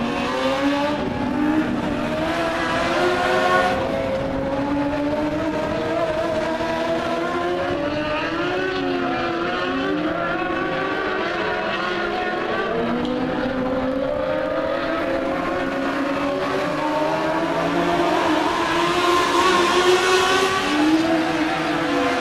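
Engines of several small open-wheel race cars running laps, their pitch rising and falling continuously as they slow and speed up, growing louder near the end.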